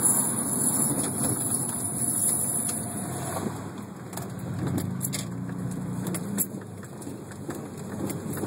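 Subaru SVX on the move, with road and tyre noise under a high-pitched brake squeal, a noise the owner places on the passenger side. The squeal stops about three and a half seconds in, and a few clicks follow.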